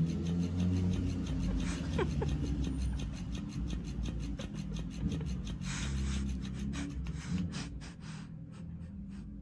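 Electric flopping fish cat toy running, its tail flapping in a quick, regular beat with rustling against fabric; the beats thin out near the end.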